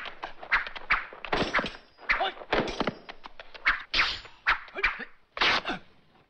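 Martial-arts film fight sound effects: an irregular run of sharp thuds and blows, about two or three a second, mixed with strained gasps and grunts.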